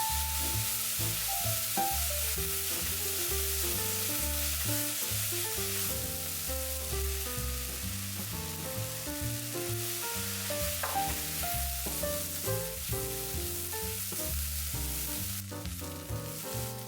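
Food sizzling as it fries in oil in a pot, stirred now and then, under background music with a melody and bass line. The sizzle stops about a second before the end, leaving the music.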